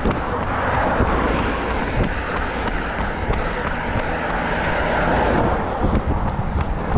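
A motor vehicle passing close by: its engine and tyre noise swells for about five seconds and then fades. A runner's regular footsteps can be heard again near the end.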